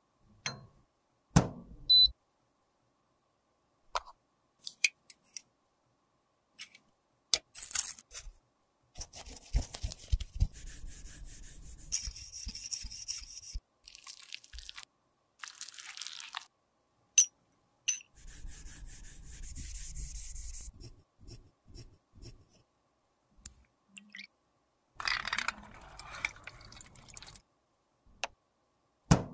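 Close-miked handling sounds of makeup work with small glass and plastic lipstick containers and tools: sharp clicks and taps, and several scratchy scraping stretches of a second or more.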